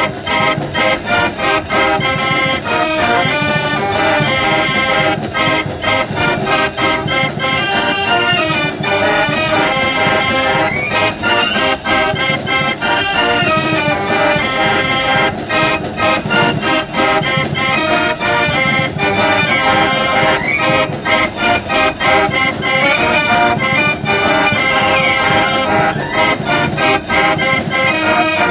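Verbeeck concert organ from Antwerp playing a tune, its pipes sounding full chords, with built-in percussion keeping a steady beat.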